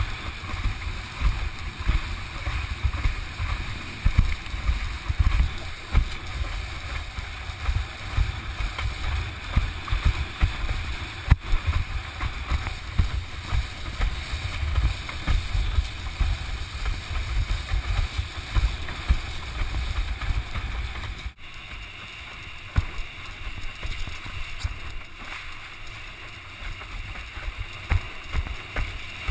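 Wind buffeting on the microphone and water rushing and hissing past a windsurf board sailing at speed. About two-thirds of the way through the sound changes abruptly, with less low buffeting.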